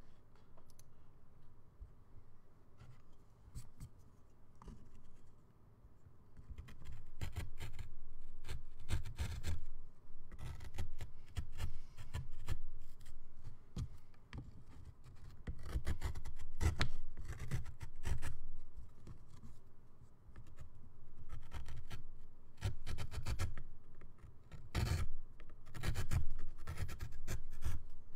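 Hand carving tool scraping and cutting into a wooden woodcut block, close to the microphone: fainter for the first several seconds, then bursts of short, quick scraping strokes.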